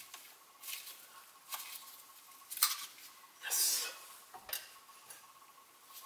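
Irregular light metallic taps and clinks of a hammer on a thin punch, driving a dowel pin into the selector shaft of a GM 5L40E automatic transmission. There are about six, the sharpest a little before the midpoint, with one longer scraping sound just after it.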